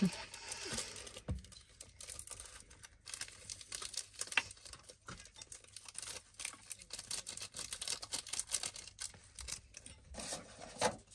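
Instant-noodle seasoning sachets being torn open, crinkled and squeezed out over the noodle bowl: many small, irregular crackles and rustles.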